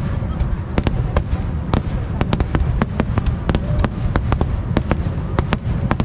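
A fireworks display going off in quick succession: many sharp cracks and pops, several a second, over a continuous low booming of bursts.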